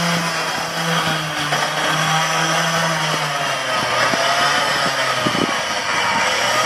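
Suzuki Jimny's engine running under load as it pulls a land anchor across grass on a taut tow line. Its note drops a little about three and a half seconds in.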